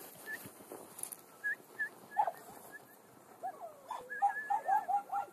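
A dog whining and whimpering close by: a series of short, high, wavering cries that come thicker and faster near the end.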